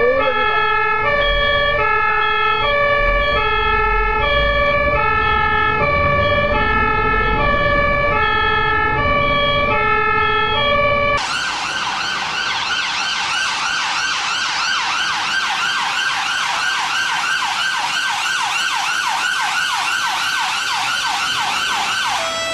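Ambulance two-tone siren alternating between a high and a low note about every half second, over low road and engine rumble. About halfway through it cuts suddenly to a different ambulance siren in a fast yelp, rising quickly in pitch again and again, several sweeps a second.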